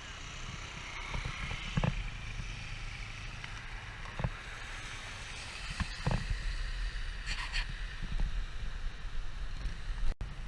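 Outdoor noise of wind buffeting the microphone over a steady rushing hiss of floodwater, with a few brief knocks.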